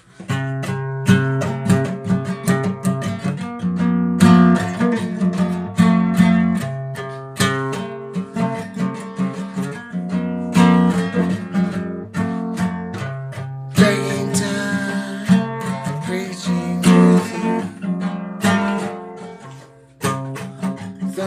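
Acoustic guitar playing a song's instrumental intro, strummed and picked chords, with a short pause about a second before the end.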